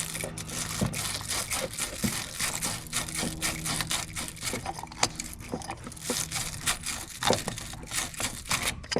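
Wire-bristle battery terminal cleaning brush twisted back and forth on a corroded battery post, a continuous scratchy scraping as the corrosion is scrubbed off.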